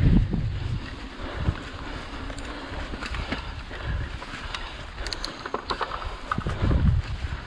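Mountain bike rolling along a dirt trail: wind buffeting the camera microphone in low gusts over the rumble of the tyres, with scattered sharp clicks and rattles from the bike, most of them between five and six seconds in.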